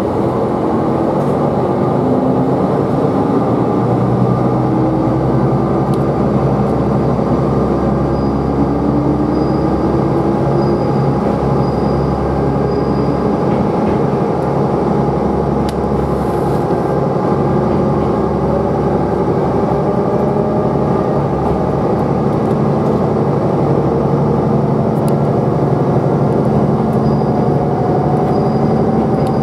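Tsugaru Railway diesel railcar pulling away from the station and accelerating, heard from inside the cabin: the engine note climbs several times over a steady low rumble of the running train.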